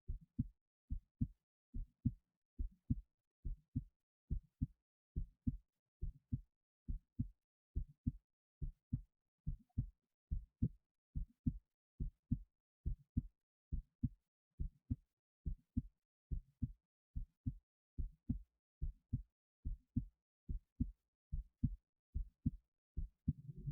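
A human heartbeat picked up by a microphone on the chest: a steady, regular lub-dub, two low thumps to each beat. A low rumbling noise joins in near the very end.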